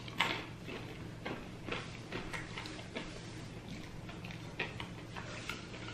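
Close-miked eating sounds: irregular soft clicks and smacks of chewing, a few a second.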